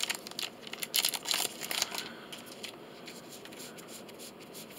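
Magic: The Gathering cards and their booster pack wrapper being handled: crinkling and card rustles for about the first two seconds, then quieter handling.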